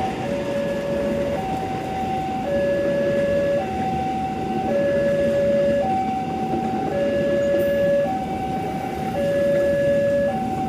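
Two-tone electronic warning alarm sounding steadily, swapping between a higher and a lower note about once a second, over a continuous rumble of rail noise.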